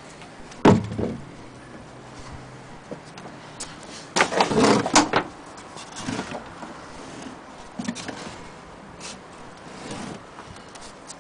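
Wooden sewing-machine carrying case being handled: a sharp knock about a second in, then a clatter of wooden knocks and rattles around four to five seconds, with a few lighter bumps after.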